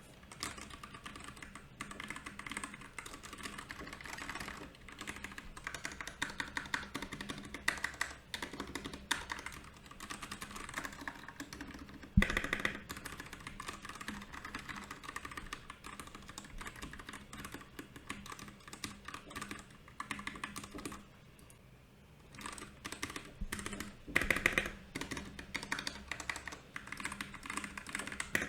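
Fast, uneven typing on a Royal Kludge RK68 mechanical keyboard: a dense run of key clicks and clacks, with one louder knock about twelve seconds in and a brief pause past the two-thirds mark.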